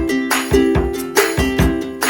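Background music: a plucked-string melody, ukulele-like, over a steady beat.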